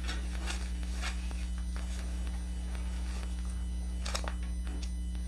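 Steady low electrical hum, with a few faint clicks and taps as a yarn cake is handled in a clear plastic yarn holder.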